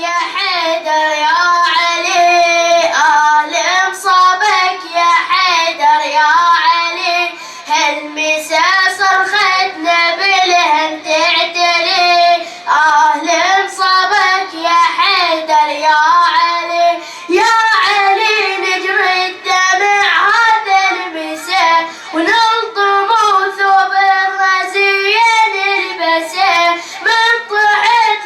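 A boy chanting a Shia latmiya elegy solo in a high voice, with long, ornamented melodic lines.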